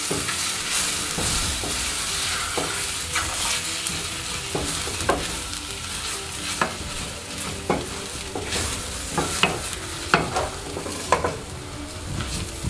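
Wooden spoon stirring and scraping a thick paste of ground groundnuts (peanuts) with onion, green pepper and tomato in a stainless steel pot, strokes about once a second, over a steady sizzle as the mixture dry-fries without oil.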